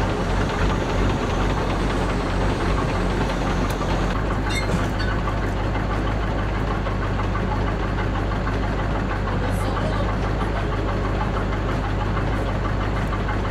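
Truck crane's engine idling steadily, a low even drone, with a few faint clicks about four and a half and nine and a half seconds in.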